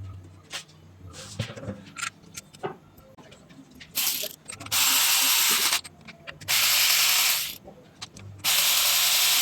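Light clicks and knocks of parts and tools being handled, then four hissing blasts of pressurised spray, each about a second long, starting about four seconds in.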